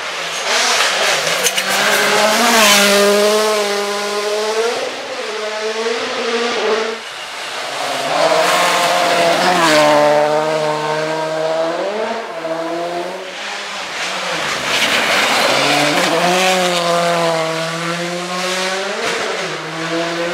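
Rally cars passing one after another at speed on a loose gravel stage, three passes in all. Each engine note climbs and drops sharply as the driver works through the revs and gears, over the hiss of tyres on gravel.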